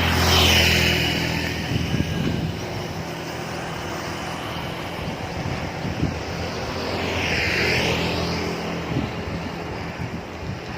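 Road traffic going by: a motor vehicle passes at the start, its engine fading within about a second, and another passes about seven to eight seconds in.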